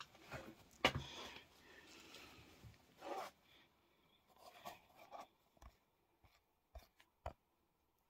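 Faint rustling with a few scattered sharp clicks and knocks, the sharpest about a second in and the rest spread through the second half.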